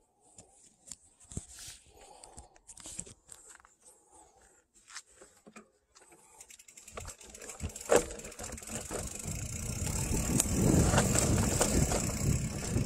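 Bicycle ride down a dirt forest singletrack, heard from the bike: scattered quiet clicks and rustles at first, then from about six seconds in a rising rush of wind and tyre noise on the microphone as speed builds, with a sharp knock about eight seconds in.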